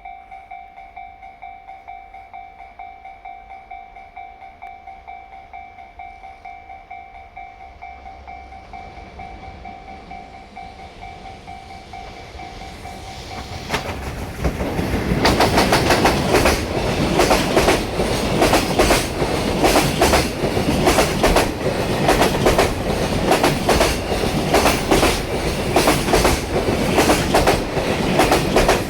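Level-crossing warning bell ringing in steady pulses, cutting off about 14 seconds in. A JR Freight EF210 electric locomotive and its long string of container wagons then rumble up and pass close by, the wheels clattering loudly over the rail joints in a rapid, continuous clickety-clack.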